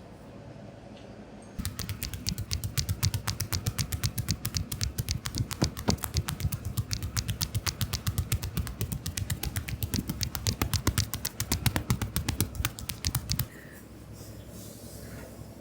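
Fast, steady run of sharp slaps from hands striking the body in a percussive back and shoulder massage. It starts about a second and a half in and stops suddenly about two seconds before the end.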